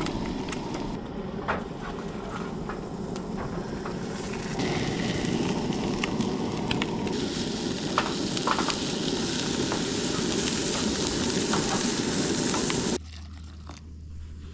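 Food frying and sizzling in a pan, with a few small clicks and knocks. It cuts off suddenly near the end.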